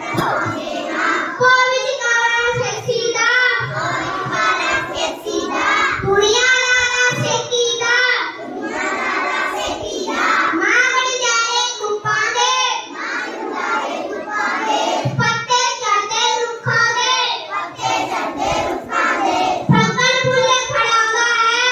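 A child singing solo, without instrumental accompaniment, in one almost unbroken line.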